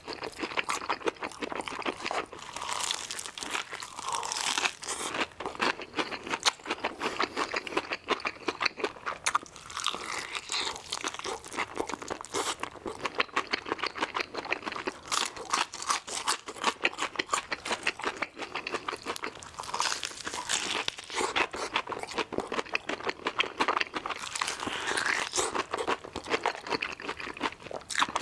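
Crispy fried chicken being bitten and chewed close to the microphone, with many sharp crunches in quick succession.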